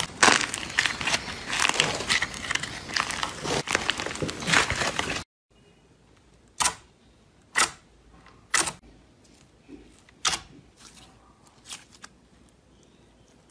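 Dense, loud crunching and crackling as hands squeeze and pull apart slime coated in a crunchy yellow crust. After an abrupt cut, clear slime pressed and stretched by hand gives sharp pops about once a second, four loud ones and then a few fainter ones.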